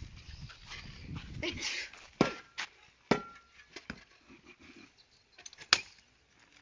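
Sharp metallic knocks of a hand tool striking ground or stone, three strong hits a second or more apart, the first two ringing briefly, after a couple of seconds of rustling noise.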